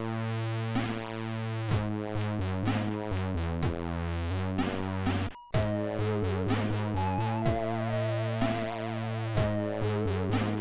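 Commodore 64 SID chip music: a stepping synth bass line under regular noise-drum hits. About halfway through the sound cuts out for a moment, and after it a lead melody with a wide vibrato comes in.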